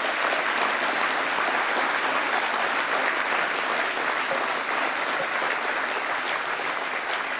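Large audience applauding, steady clapping from many hands.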